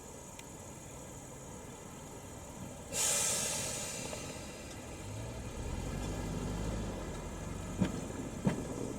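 A sudden hiss of compressed air from an electric train's brakes, fading over a second or two, then the low hum and rumble of the train moving, with two sharp clacks near the end.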